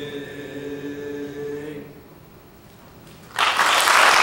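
A boys' choir holding a final sung chord, which cuts off about two seconds in. After a short pause an audience starts applauding near the end, the loudest part.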